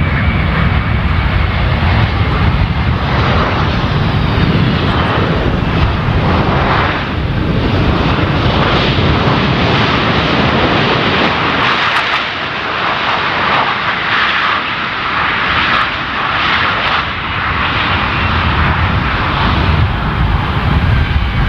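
Boeing C-17 Globemaster III's four turbofan engines running loud as the jet lands on a dirt strip: a steady jet rumble with a faint high whine. About halfway through, the deep rumble drops away and a rougher, hissing roar takes over.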